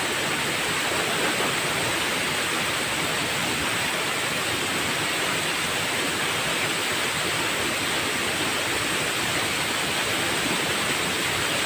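Waterfall: water pouring and splashing with a loud, steady rush.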